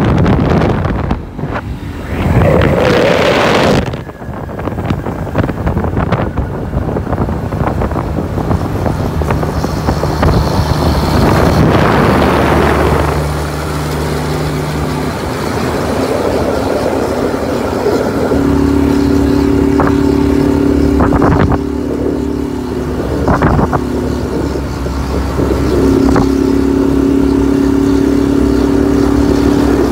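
Mercedes-Benz Atron diesel truck running alongside at highway speed, with wind and tyre rush on the microphone. About two-thirds of the way in, a horn sounds a steady two-note blast that breaks off twice and then holds.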